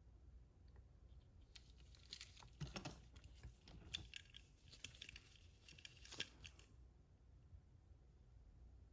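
Faint, scattered clicks and rustles of die-cast toy trucks being handled, from about a second and a half in until near the end.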